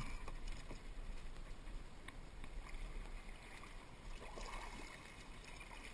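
Kayak paddle dipping into creek water, with faint scattered drips and small splashes against the hull.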